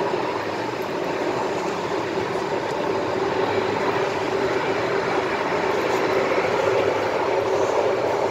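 MTR M-Train car running on the Island Line, heard from inside the car: a steady rumble of wheels on rail and running gear, growing slightly louder.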